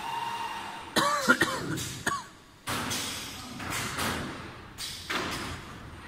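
Machinery noise from an automatic tricot cutting and welding machine. About a second in there is a short cough-like vocal sound, then several hissing bursts, each about a second long.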